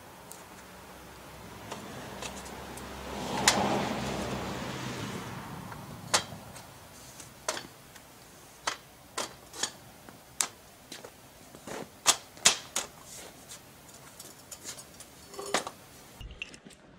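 Square steel tubing of a bandsaw-mill rail frame being handled on paving stones: a scraping noise swells and fades about three to five seconds in, then a string of sharp metallic clanks and knocks, about a dozen over ten seconds.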